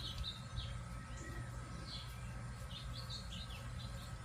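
Birds chirping: scattered short, high chirps over a steady low hum.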